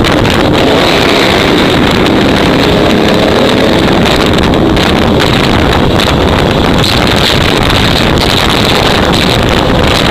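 A vehicle engine running steadily under way, loud and unbroken, with wind buffeting the microphone.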